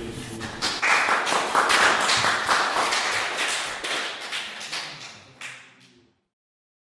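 A small audience applauding, made up of many irregular hand claps. The applause thins and fades out about six seconds in.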